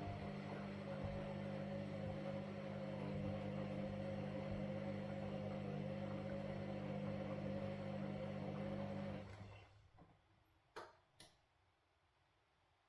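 Washing machine motor turning the drum with a steady hum, which stops about nine seconds in. Two short clicks follow in the pause, before the drum starts turning again.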